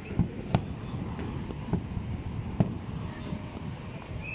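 Aerial fireworks shells bursting: a string of sharp bangs, about five in four seconds, over a steady low rumble.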